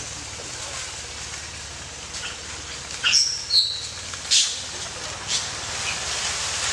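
Steady outdoor background hiss, broken a few seconds in by several short, high-pitched chirps and squeaks and a couple of sharp clicks.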